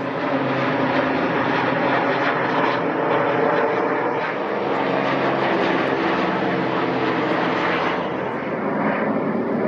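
A formation of propeller trainer aircraft and small jet trainers passing overhead, their engines droning steadily together. The sound thins out a little about eight seconds in.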